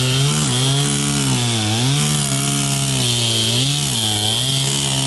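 Chainsaw running and cutting wood, its engine pitch dipping and recovering several times as the chain bites into the wood.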